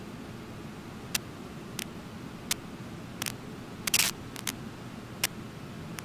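Steady low rush of water pouring over Brooks Falls, with sharp irregular clicks every second or so and a brief louder crackle about four seconds in.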